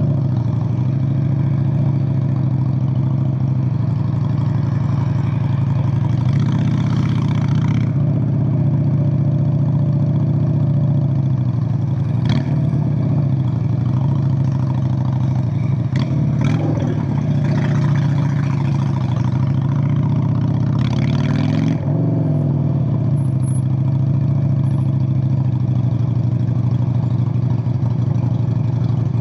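Honda Steed VLX 600 (Shadow 600) 583 cc V-twin running steadily through straight pipes, its deep note holding an even pitch, with a few sharp clicks around the middle and two short spells of hiss.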